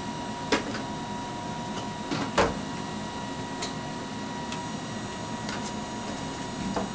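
Ampex two-inch quad videotape machines running with a steady high whine, while reels and machine controls are handled. A few sharp clicks and clunks come over it, the loudest a thud about two and a half seconds in.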